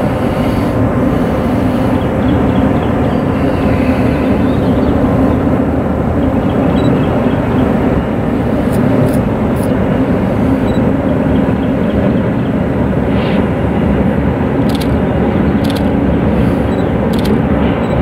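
Diesel locomotives of a Norfolk Southern freight train running across a steel truss railroad bridge: a loud, steady engine drone with a held low hum, and a few short high ticks in the second half.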